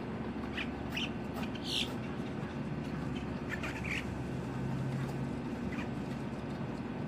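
Female boat-tailed grackle singing: short, sharp, high notes in two loose groups, the first about a second in, with its loudest, higher squeal near two seconds, and the second around four seconds in.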